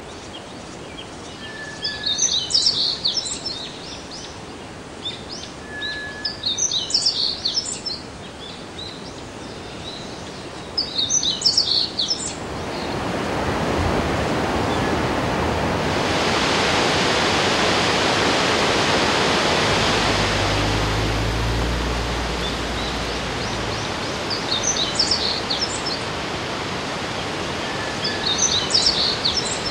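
A bird sings short bursts of quick high chirps about every four seconds. A little before halfway the rushing of a waterfall swells up, is loudest in the middle, and eases off again as the bird's bursts return near the end.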